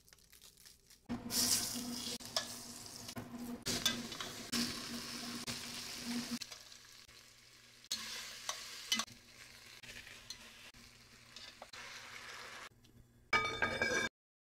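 Food sizzling in an enameled cast-iron Dutch oven while metal tongs stir and clink against the pot, loudest in the first half. Near the end comes a short loud rattle and scrape, as the pot's heavy lid is handled.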